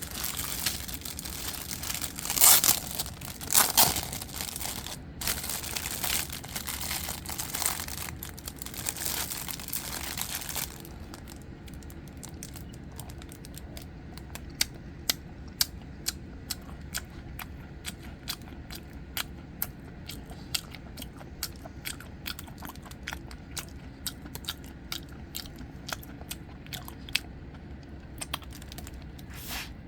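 Close-miked mukbang eating of soboro red bean bread. For the first ten seconds there is steady crinkling and tearing with a couple of loud crackles, as the bread and its wrapping are torn. After that comes quieter chewing with scattered sharp clicks.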